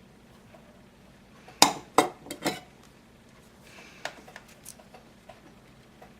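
Four quick sharp clinks of small metal tools against a hard surface, followed by a few lighter ticks and taps.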